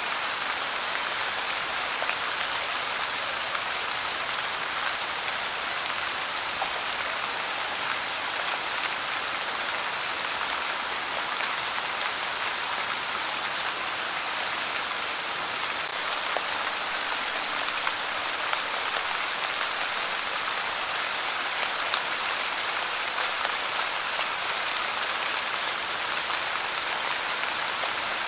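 Light rain falling steadily: an even hiss of drops, with now and then a single drop ticking more sharply.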